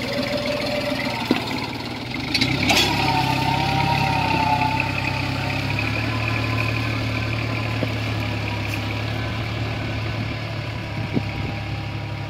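New Holland 4710 tractor's 47 hp three-cylinder diesel engine running steadily under load, pulling a mouldboard plough through the soil. It gets louder about two seconds in, with a single clank.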